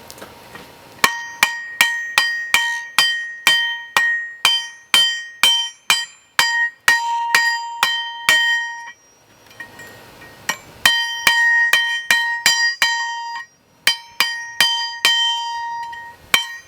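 Hammer blows forging steel on a railroad double shoulder tie plate used as an anvil, about two to three strikes a second. Each blow is followed by a bell-like ring from the steel plate. The hammering stops for a second or two in the middle, then starts again.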